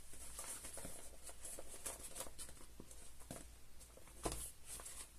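Faint rustling and crinkling of a waterproof dog raincoat's fabric as it is handled and spread out, with scattered light taps and brushes.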